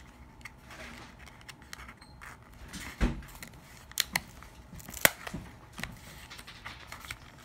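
Glued cardstock being handled, moved and pressed on a wooden tabletop: soft paper rustling with a few sharp taps, the loudest about three seconds in and again about five seconds in.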